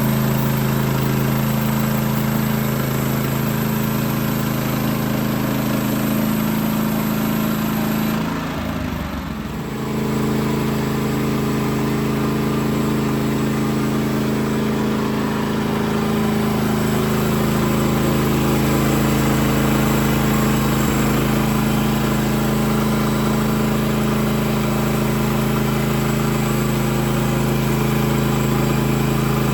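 Woodland Mills HM130 Max sawmill's gasoline engine running steadily, with a short dip in the sound about eight to ten seconds in.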